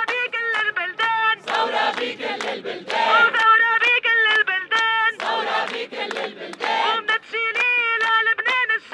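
Protest crowd singing a chant song in Arabic, a lead voice carried through a megaphone with the crowd joining in more loudly twice, over a steady beat of about four sharp ticks a second.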